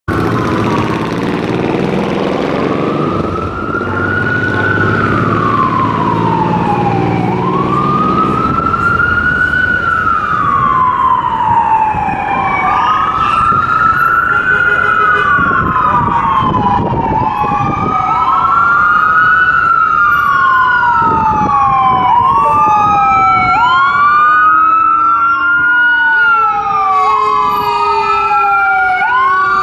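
Emergency vehicle sirens on wail, the pitch rising and falling in a slow repeating cycle. From about halfway through, a second siren wails out of step with the first, and late on a steadier lower tone joins in. Engine and traffic rumble sits underneath at the start.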